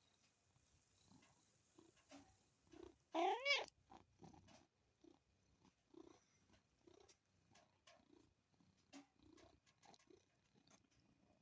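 Munchkin cat purring quietly in slow repeated pulses, with one short squeaky vocal yawn, rising and falling in pitch, about three seconds in.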